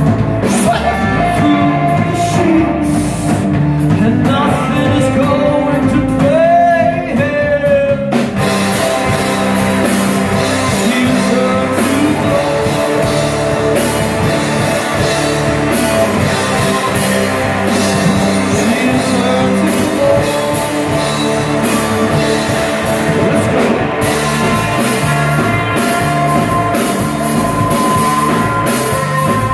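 Live rock band playing electric guitars, bass guitar and drum kit, with a man singing lead. The vocal line is in front over the first several seconds, then the full band with cymbals fills in from about eight seconds in.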